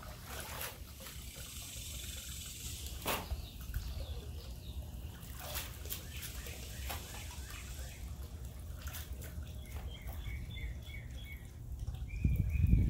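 Water from a garden hose trickling and splashing into a metal bowl as leafy greens are rinsed by hand, with small clicks of the bowl and leaves. A low rumble swells near the end.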